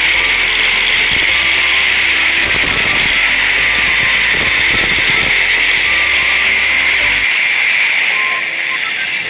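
Angle grinder running, its abrasive disc grinding the worn front face of a metal agarbatti-machine rocket (die piston) flat, a steady high-pitched grinding sound. The grinding stops near the end.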